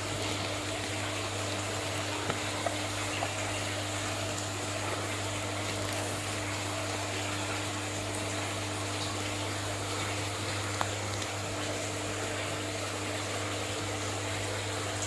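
Aquarium filter pump running with a steady low hum over the even wash of circulating water, with a few faint taps about two to three seconds in and again near eleven seconds.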